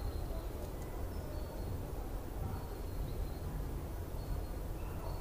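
Steady low background rumble with a few faint, short high chirps.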